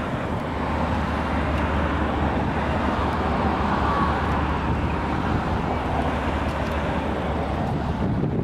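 Distant diesel freight locomotives working slowly uphill: a steady low engine drone under a wash of rushing noise, getting a little louder about a second in.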